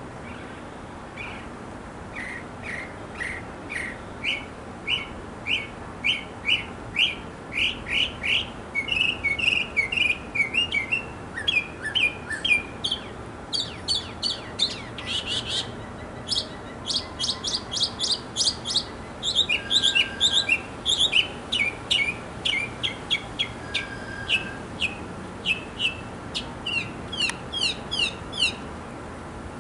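A male northern mockingbird singing: a long run of short, quickly repeated notes, switching to a new repeated phrase every few seconds, with a higher-pitched stretch near the middle.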